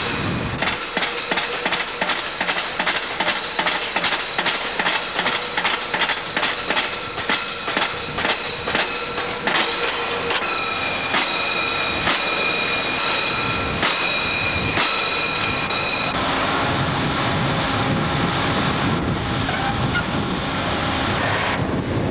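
Pile-driving hammer striking a pile in a fast, even rhythm of sharp impacts, about two to three blows a second. About ten seconds in, the blows come less often and ring more metallically. They stop about sixteen seconds in, leaving a steady windy rumble.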